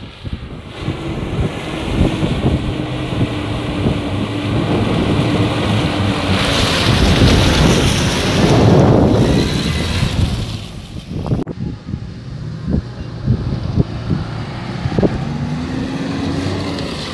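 A Daihatsu Taruna SUV's engine running under load as it drives through mud, with scattered low knocks. A loud rushing noise swells in the middle, and the engine revs up near the end.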